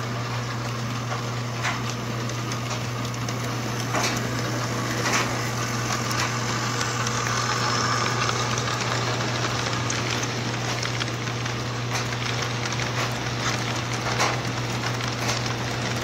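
Model train rolling past on its track: a steady low hum with wheels clicking over the rail joints, a little louder around the middle as the cars go by.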